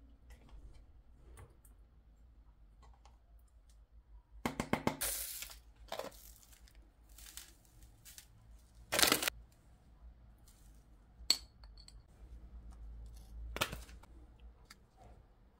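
Metal spoons tapping and scraping against a clear plastic food container as yogurt and spices go in. There are scattered clinks, a quick run of taps with scraping about four seconds in, and louder knocks about nine seconds in and near the end.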